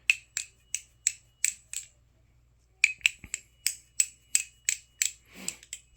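Squid Trainer V4 balisong trainer being fanned around the hand, its handles clicking with a short ringing tick about three times a second. The clicks come in two runs with a pause of about a second between.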